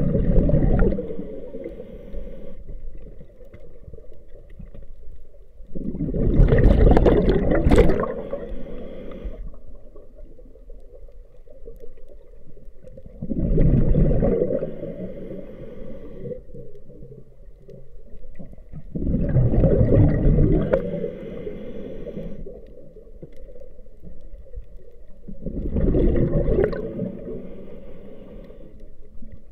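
Scuba diver breathing through a regulator underwater: five slow breaths about six to seven seconds apart. Each breath is a burst of bubbling from the exhaled air, followed by a shorter, higher hiss.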